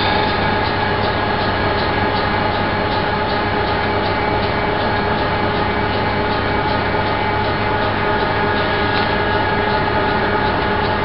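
A steady, loud drone of a diesel rail engine running in a depot, with several held tones and a faint regular beat.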